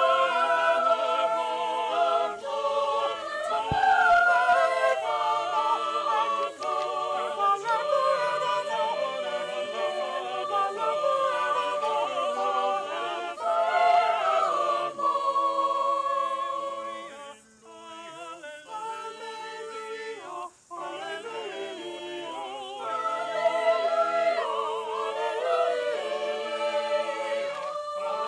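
Choir of boys and men singing unaccompanied, in sustained chords. The singing grows softer about two thirds of the way through, with two short breaks.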